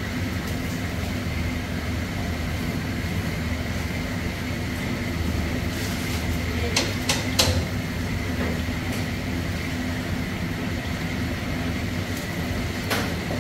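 Steady noise of jalebi frying in hot oil in a wide wok over a gas burner. Metal tongs click against the wok three times in quick succession about seven seconds in, and once more near the end.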